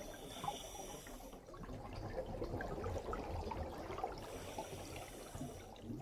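Underwater water noise: a steady, dense crackling and bubbling, with a high hiss that comes in twice, at the start and again near the end.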